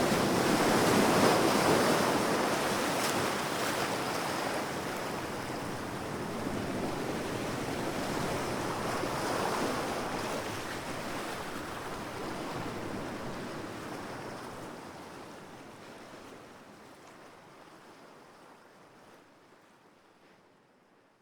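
Large ocean waves breaking on the shore, surging loudest about a second in and again around nine seconds, then the surf fades out gradually to near silence.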